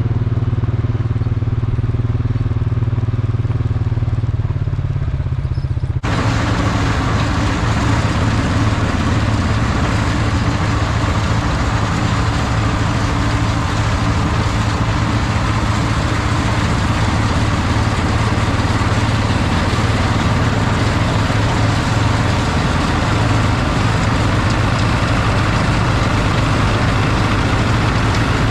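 Heavy farm machinery engine running steadily. About six seconds in, the sound changes abruptly to a louder, fuller machine noise that then holds steady.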